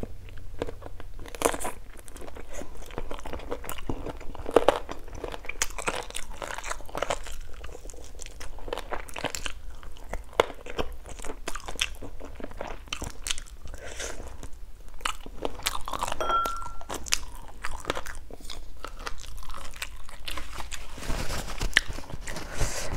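Close-miked eating: biting and chewing pieces of chicken stir-fried with lemongrass and chili, with crunches and wet mouth clicks.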